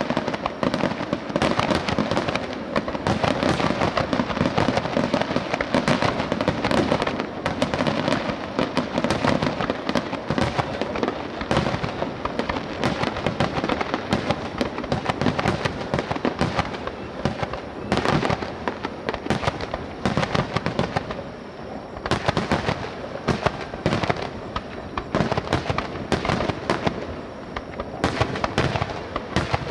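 Aerial fireworks bursting in a dense, continuous barrage of rapid bangs and crackles, with more distinct separate bangs in the second half.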